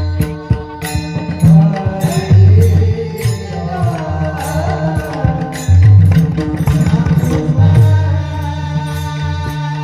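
Devotional kirtan music: deep pakhavaj drum strokes and sharp clicks of small hand cymbals over steady held tones, with a sung melodic line in the middle.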